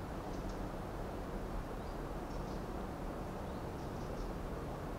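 Quiet outdoor background: a steady low hiss and rumble, with a few faint, brief high chirps from small birds about half a second in, around two and a half seconds, and again near the end.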